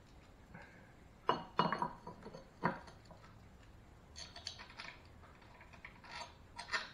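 Loose steel bolts and small metal engine parts clinking as they are picked through and handled. A few sharp clinks come between one and three seconds in, followed by lighter scattered clinking.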